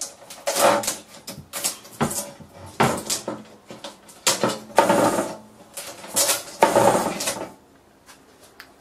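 LED backlight strip being prised and pulled off a monitor's metal back chassis by hand: irregular scraping and clattering of plastic and metal, heaviest about five and seven seconds in, then stopping shortly before the end.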